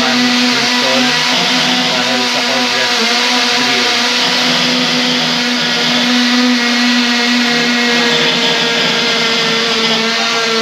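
Bosch cordless drill running steadily at one even speed while drilling a mounting hole for a window grill, its motor giving a constant whine.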